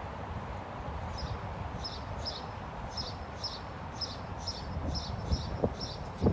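A small bird chirping, short high notes repeated about twice a second, over a steady hum of city noise.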